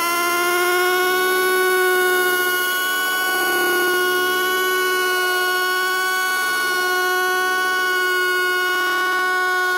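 A loud, steady drone on one held pitch with strong overtones, gliding slightly upward right at the start and then holding, like a sustained horn or electronic tone.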